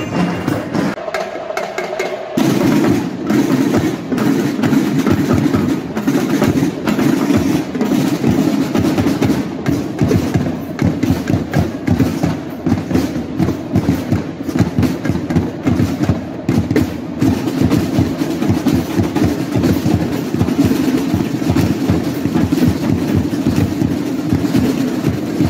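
A marching band's drum line of snare drums and bass drums plays a fast, steady cadence of dense strikes. It comes in fully about two seconds in.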